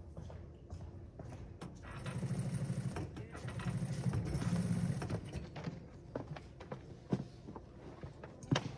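A small motor running with a low, steady buzz, loudest for about three seconds in the middle, followed by a few scattered clicks and knocks.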